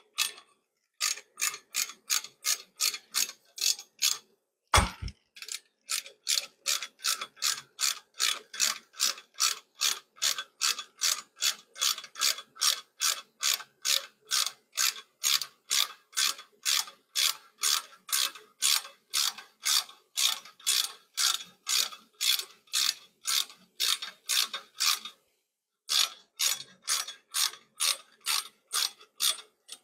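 Hand ratchet clicking steadily, about three clicks a second, as bolts are run in. It pauses briefly about four seconds in with one dull knock, then clicks on, with another short pause near the 25-second mark.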